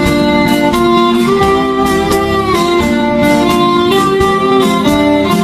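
Instrumental break of an upbeat children's song: plucked guitar-like accompaniment with a bowed, fiddle-like melody over a steady beat.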